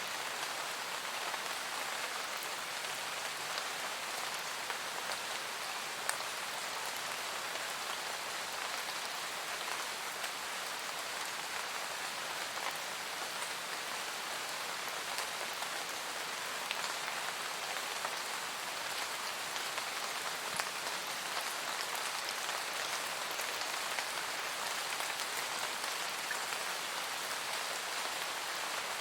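Steady rain falling in a forest, an even hiss of drops with scattered individual patters on leaves and surfaces.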